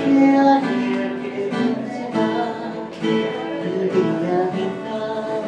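Acoustic guitar strummed in chords, with a man singing along.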